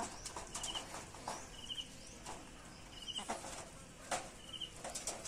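Hens pecking at pieces of mango on a wire-mesh cage floor, their beaks making scattered sharp taps. A short high trilling chirp recurs every second or two.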